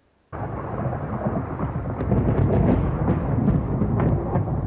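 Thunder: a loud rolling rumble that starts abruptly about a third of a second in, with sharp crackling strikes over it, most of them in the middle.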